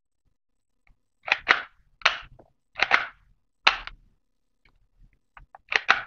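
Plastic mechanism of a toy foam-dart pistol being worked by hand: a run of sharp clacks, several in quick pairs, then lighter clicks and a louder double clack near the end.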